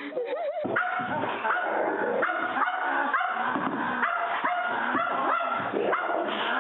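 Dogs barking and yipping over and over while playing, about two to three short barks a second, beginning about a second in.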